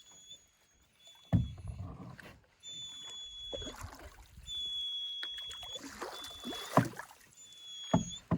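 Dog whining in high, thin drawn-out whimpers, over and over. A few hard knocks, a paddle against the canoe hull, and the swish of paddling come in between.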